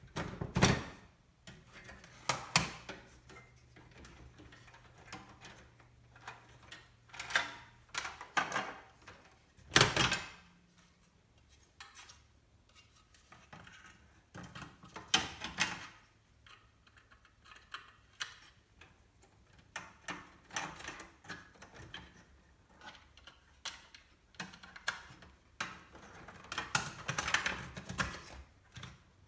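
Scattered clicks, knocks and rattles of computer parts and a PC case being handled during assembly, at irregular intervals. The loudest knocks come about a second in and about ten seconds in.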